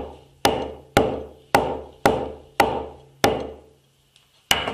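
Rugged smartphone (Doogee S86) being knocked down repeatedly onto a hard surface to drive water out of its bottom microphone opening. There are sharp knocks, about two a second, each with a short ringing decay, then a pause of about a second before one more knock near the end.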